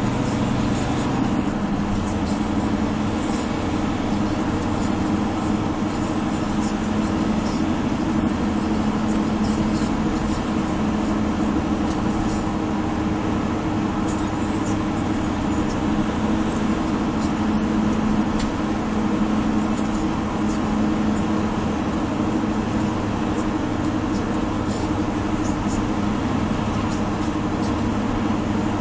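Steady engine drone and tyre and road noise inside a car cruising at highway speed.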